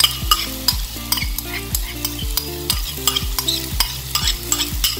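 Diced red bell pepper and garlic frying and sizzling in a hot pan as they are scraped in from a bowl. A spoon clicks and scrapes against the bowl and pan many times, over background music with a steady beat.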